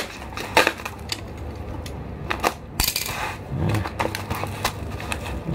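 Plastic package wrapping crinkling as clear packing tape is unrolled and pressed onto it: irregular short crackles and clicks.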